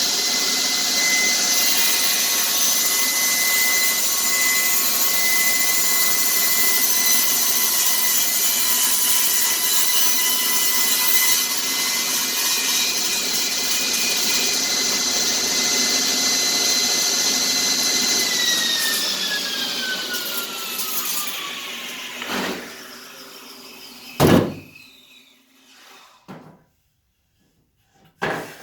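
Table saw running at full speed with a steady high whine, then switched off about 18 seconds in and spinning down with falling pitch. A few knocks follow, one of them loud, about 24 seconds in.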